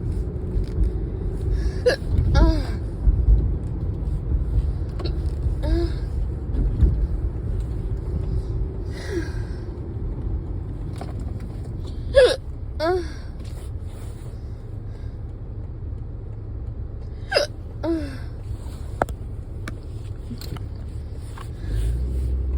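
Hiccups: short sharp gulps, each with a brief falling squeak, every few seconds and sometimes in quick pairs. A car's steady low road rumble runs underneath, heard from inside the cabin.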